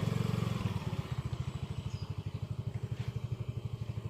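Motorcycle engine running at low speed, a fast, even low pulsing that drops a little in loudness about a second in.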